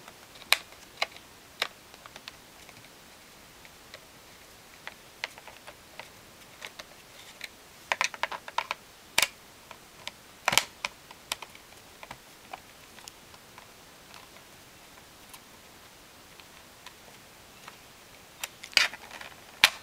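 Scattered small clicks and taps of a screwdriver working the screws of the plastic memory compartment cover on the underside of a Dell Inspiron laptop, with the cover being handled. There is a quick run of clicks about eight seconds in, and a few more near the end.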